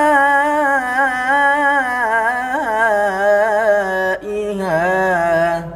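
A young man's voice reciting the Qur'an in melodic tilawah style, drawing out long ornamented notes that waver up and down. A brief break comes about four seconds in, then a shorter phrase before the voice stops near the end.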